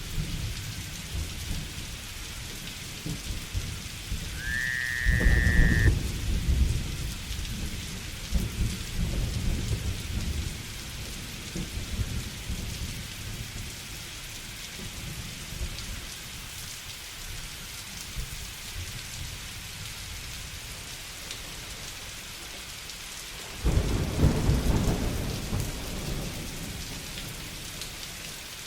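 Steady rain falling in a rainforest thunderstorm, with rolling thunder: one low rumble about five seconds in and another near the end. A short high whistled note rises and holds briefly just before the first rumble.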